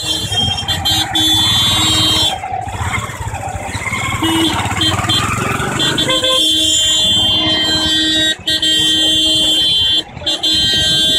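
Vehicle horns honking in heavy city traffic, long held blasts that overlap, with a couple of short breaks near the end, over the low running of auto-rickshaw engines.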